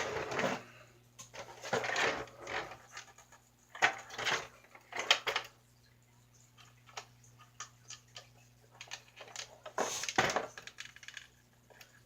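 Irregular clicks, taps and rattles of small screws, a screwdriver and hard plastic parts being handled while putting together a toy RC snowmobile's motor and drive.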